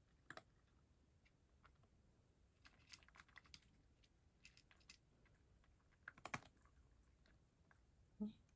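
Cat eating dry kibble: faint, irregular crunches and clicks, in small clusters and loudest about six seconds in. A brief low hum comes near the end.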